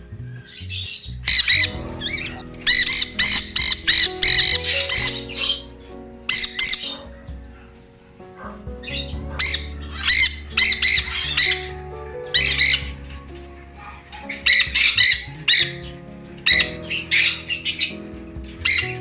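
Sun conures screeching: loud, shrill calls repeated in rapid runs, with short pauses between the runs.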